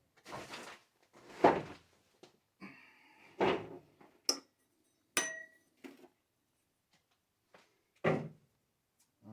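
A series of handling knocks and clunks, the loudest about a second and a half in, with two sharp clicks around four and five seconds in, the second ringing briefly like metal.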